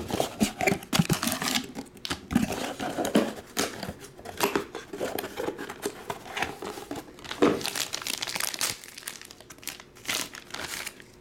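Hands handling and opening a cardboard trading-card box and crinkling a black plastic card wrapper as it is pulled off. The sound is irregular rustling, scraping and crackling.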